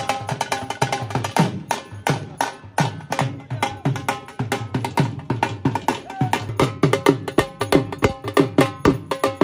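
Dhol drum played with a stick in a fast, driving rhythm: deep bass strokes that drop in pitch, mixed with sharp higher slaps, with a higher held melody sounding over the beat.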